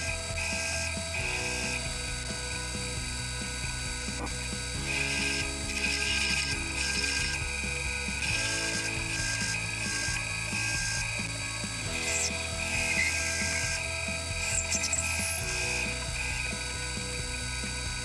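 Disc sander running with a steady high whine, grinding down small plastic puzzle pieces filled with epoxy putty against the abrasive disc. Background music with a regular bass line plays underneath.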